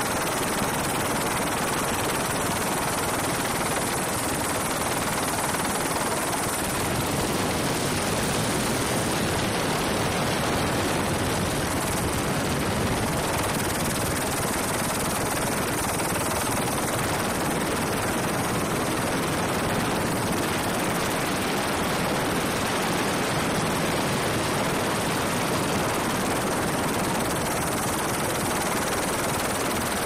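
Steady rushing noise with a thin high-pitched whine above it, unchanging throughout.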